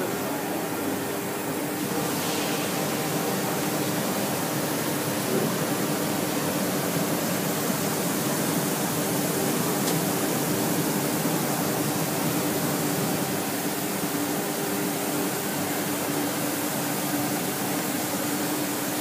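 Bottero Bimatech Core CNC glass-working machine running inside its enclosure while it works a glass piece: a steady hiss of coolant water spraying, with a steady hum under it.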